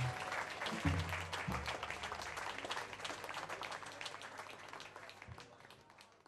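Audience applauding at the end of a jazz quartet's number, with a couple of last low notes from the band in the first two seconds. The clapping fades steadily away.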